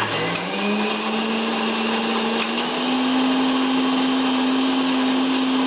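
Electric mixer grinder switched on and grinding apple pieces: the motor whine rises quickly as it spins up, steps up slightly in pitch about two and a half seconds in, then runs steadily.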